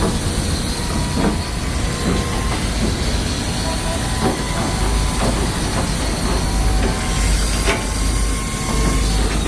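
Heavy machinery running: a steady low engine rumble with a constant hiss and a few scattered clanks and clicks.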